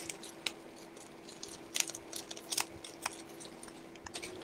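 Faint rustling and a few scattered light clicks as packing material and toys are handled and rummaged through in a box.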